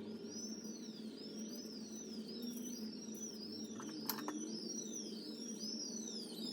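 Background synthesizer music: a repeating pattern of swooping high notes, about two a second, over a steady low drone.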